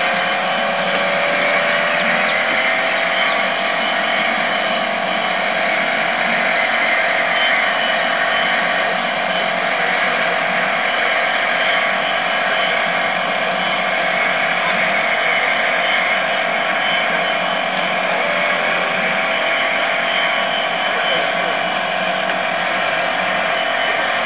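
Electric motor and drivetrain of a radio-controlled drift car whining steadily and high-pitched, the pitch wavering as the car is driven.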